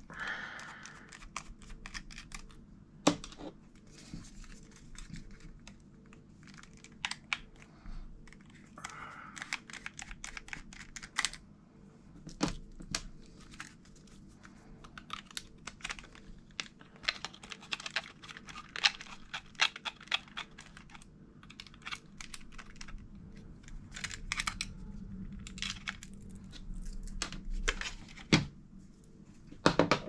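Small screwdriver backing stiff T8 Torx screws out of a Mac mini hard drive's mounting bracket: scattered small clicks, scrapes and creaks of the driver and the bracket being handled, with a few sharper knocks now and then.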